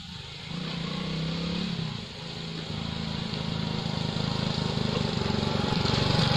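Motorcycle engine approaching, growing steadily louder as it comes nearer.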